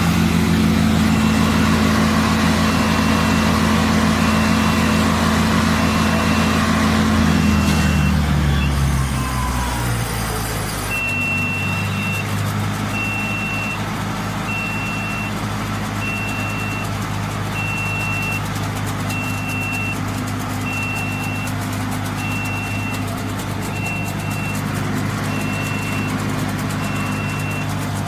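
Hydraulic wood chipper's engine running at speed, then slowing down to a lower, steady run about eight to ten seconds in. A high electronic beep repeats about once a second throughout.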